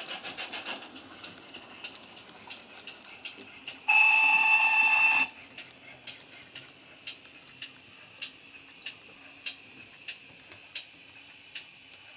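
Steam locomotive sound from the DCC sound decoder of a Hornby GWR King class model, played through small speakers in the tender: soft exhaust beats about two a second as it runs slowly, with one steady whistle blast of about a second and a half about four seconds in.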